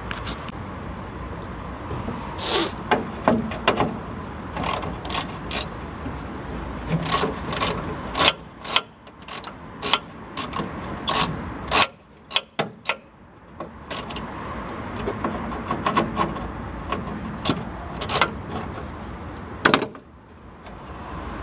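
Irregular sharp metallic clicks and knocks of hand tools being worked on the radiator, its hose clips and its mounting bolts.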